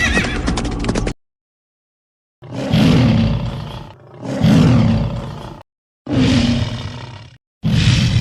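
Fantasy-creature roar sound effect, four long roars in a row with short pauses between them, each fading away.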